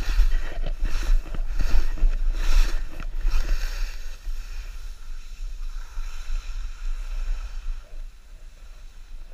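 Skis swishing and scraping through soft snow on a downhill run, with wind rumbling on the camera microphone. The swishes come about once a second for the first few seconds, then ease off and the run grows quieter.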